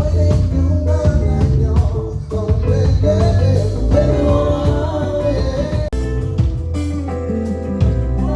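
Live band playing an instrumental passage: bass, drums and guitar with a steady beat.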